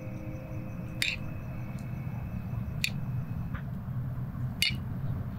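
A metal spoon packs meat filling into a hollowed red bell pepper: soft squishing with four light clicks of the spoon against the pepper, spread over a few seconds, over a low steady background rumble.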